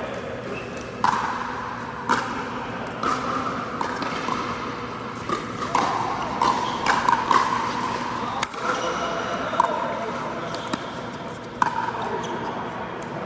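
Pickleball paddles hitting the ball in a rally: sharp hollow pops roughly once a second, each ringing briefly.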